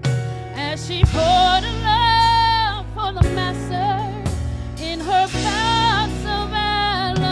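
Gospel music: a singer holding long notes with vibrato, no words made out, over a band with bass and drum hits.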